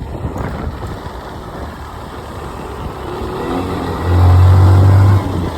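A motor vehicle's engine running close by: a noisy rumble that builds about three seconds in into a loud, steady low drone, dipping briefly near the end.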